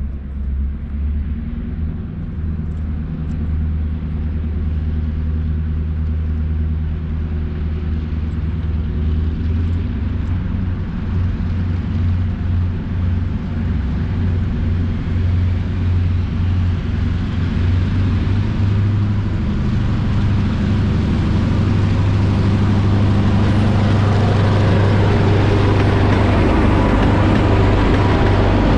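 Five EMD GP38-2 diesel-electric locomotives, each with a non-turbocharged 16-cylinder two-stroke engine, working under power as they approach: a steady low rumble that grows louder and fuller, with the lead units passing close by near the end.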